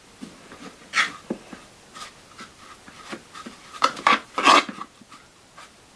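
Static grass fibres being stirred and rubbed together in a plastic tub, with a small screwdriver and by hand: a run of short dry scratching and rustling strokes, loudest about four seconds in.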